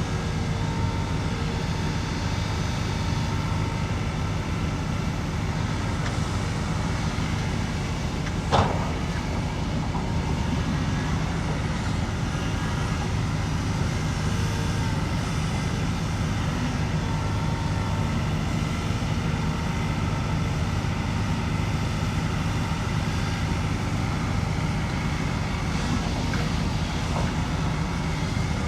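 Heavy diesel engine of earthmoving machinery running steadily, with a single sharp knock about eight and a half seconds in.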